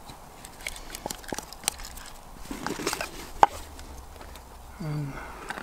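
Light clicks and taps of camp mugs and a plastic stirrer being handled on a camp table, with one sharper click about three and a half seconds in.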